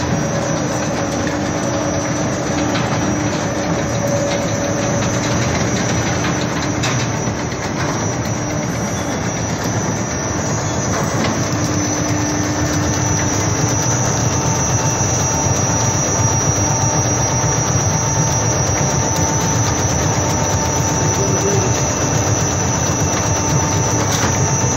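Kom Silage KM 200+60 silage baling and wrapping machine running steadily: a loud, dense mechanical noise with a few steady hum tones and a high whine.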